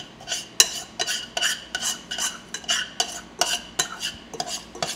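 Metal spoon stirring panko breadcrumbs in melted butter in a small saucepan, scraping the pan in quick, even strokes, about four a second.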